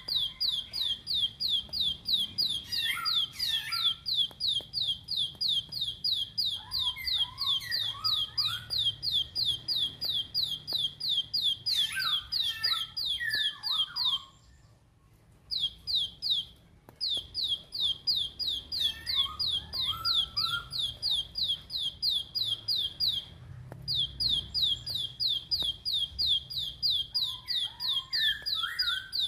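Plain prinia (ciblek sawah) singing: a fast, even run of high, sharp repeated notes, about five a second, that breaks off for about a second near the middle and then carries on. Lower twittering chirps come in every few seconds.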